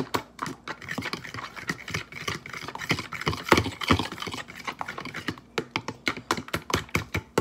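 Fork clicking and scraping against a clear plastic container, mixing beaten eggs with cinnamon and sugar, in quick irregular taps.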